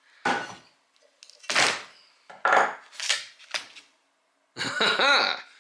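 Tools and parts clacking and knocking against the septic aerator air pump as its rubber mounts are taken off: about five sharp knocks in the first four seconds, each ringing out briefly.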